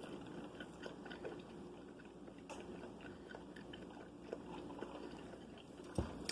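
Faint close chewing of food, with scattered small clicks and smacks. A single dull thump comes about six seconds in.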